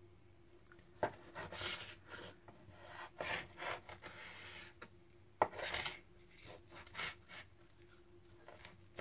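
Kitchen knife sawing through a raw salmon fillet, the blade scraping along a plastic cutting board in a series of short strokes, with a sharp tap about a second in and another about halfway.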